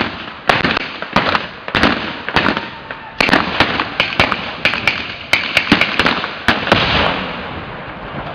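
Reenactment blank gunfire and pyrotechnic charges: a rapid, irregular string of sharp cracks and bangs, a few of them louder than the rest.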